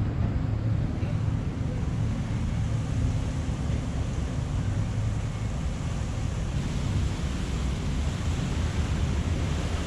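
Wind buffeting the microphone, with the low, steady hum of an idling engine underneath.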